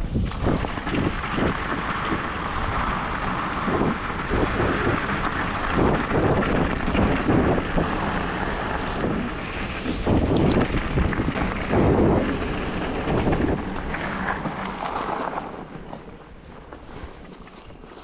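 Mountain bike descending fast on a dirt and gravel track: wind buffeting the microphone, tyres crunching and the bike rattling over bumps. It quietens about three seconds before the end as the rider slows.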